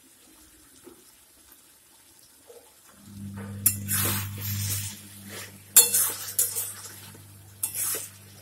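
A metal spatula scraping and knocking against a metal kadai as a thick, nearly dry chicken curry is stirred, in three bursts starting about three seconds in, each opening with a sharp clink. A steady low hum starts with the stirring and runs under it.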